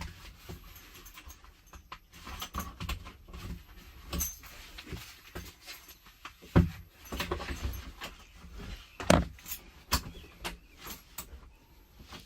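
Irregular clinks, clicks and knocks of metal bunk hardware being worked by hand, with two louder thumps, one about six and a half seconds in and one about nine seconds in.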